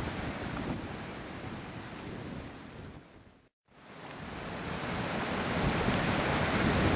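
Steady rush of a shallow, stony river running past. About halfway through it fades out to a moment of silence, then fades back in.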